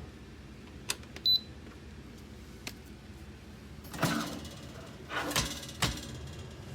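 A click, then one short high electronic beep, followed a few seconds later by several knocks and rustling noises of something being handled.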